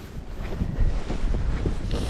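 Wind buffeting the microphone in a snowstorm: an uneven, gusting low noise.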